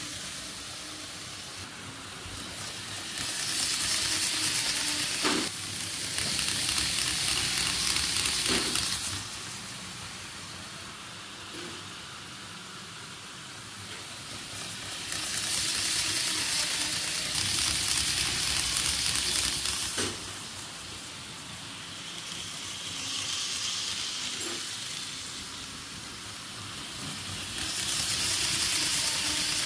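N-gauge model trains running over the layout's track: a hissing rattle of wheels on rail that swells three times as trains pass close, with a few sharp clicks.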